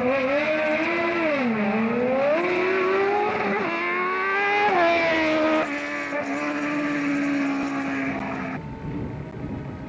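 Rally car engine at high revs, its pitch falling, climbing and dropping sharply as it changes gear. It then holds a steady note and cuts off abruptly near the end.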